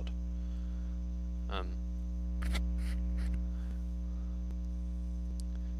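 Steady electrical mains hum with a stack of overtones, with a brief vocal sound about one and a half seconds in and a few soft clicks around the middle.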